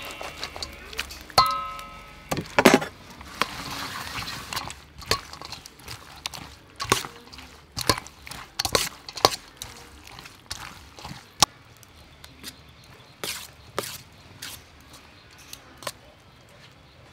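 Tiny frogs tipped from a bamboo basket into a steel bowl of soy sauce and seasoning, then mixed by hand, giving irregular clicks and taps against the bowl, busiest in the first few seconds and sparser later. A short ringing note sounds about a second and a half in.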